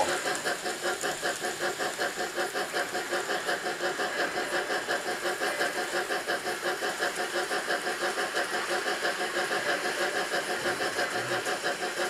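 N gauge model train running on the track, pulling a rake of Graham Farish Stanier corridor coaches: the small locomotive motor's steady whine with a rapid, even pulsing as the train goes round.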